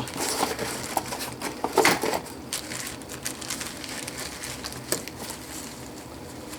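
Plastic baggie crinkling as it is handled and cut open, with scattered small clicks. The crinkling is busiest in the first two seconds, then dies down to occasional light clicks.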